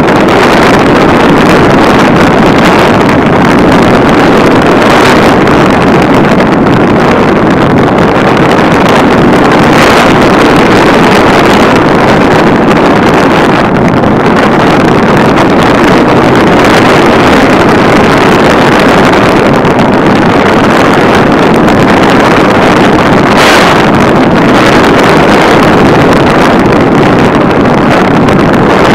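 Onboard sound of an electric RC plane in flight: the motor and propeller run steadily while air rushes over the microphone, loud and unbroken.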